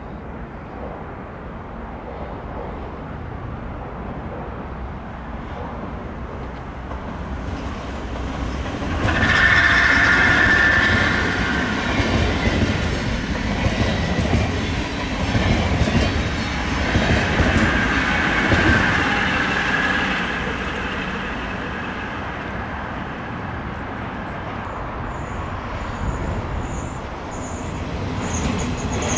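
Dutch NS intercity electric train passing on the track: the rumble of wheels on rails swells over a few seconds, stays loud for about ten seconds with a high steady tone coming over it twice, then dies down. Near the end a second intercity, an NS ICM 'Koploper', approaches and grows louder.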